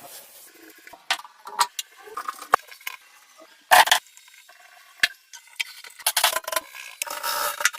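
Irregular metal clinks, taps and scrapes of parts and hand tools being handled, with a few louder knocks, one of them about four seconds in.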